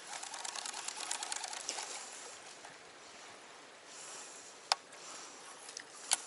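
Fishing reel cranked fast, a rapid dense clicking whir for about two seconds, then stopping; two sharp single clicks follow near the end.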